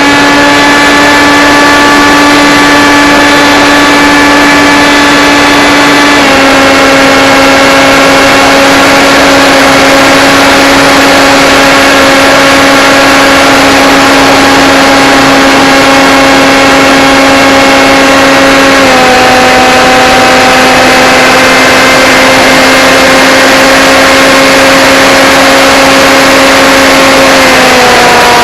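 Electric motors and propellers of a Blade Theory Type W FPV quadcopter in flight, heard up close over heavy rushing noise: a loud, steady whine that drops in pitch a few times as the throttle changes.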